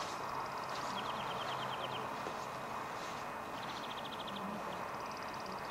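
Small songbirds trilling: short, rapid trills about a second long, one lower and one higher-pitched, recurring every couple of seconds over a steady outdoor hiss.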